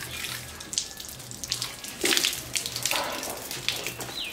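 Water running from a wall tap and splashing against the wall and ground, louder from about two seconds in.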